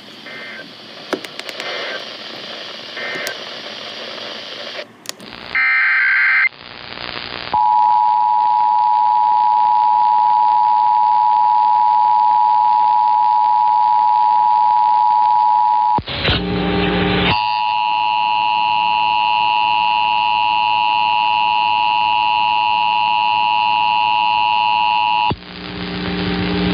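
Emergency Alert System test tones over the radio: a short burst of data tones, then the steady two-tone attention signal for about eight seconds, a brief break, and a second, harsher two-tone attention signal for about eight seconds more. Before them, a few seconds of faint radio audio with a few short beeps.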